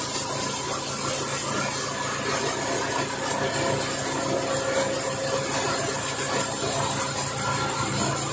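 Engine of a 6.5 hp rice thresher running steadily at an even speed.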